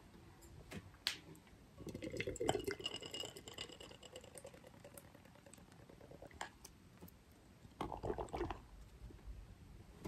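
Beer poured from a can into a tilted glass, the liquid splashing and fizzing as the glass fills, starting about two seconds in.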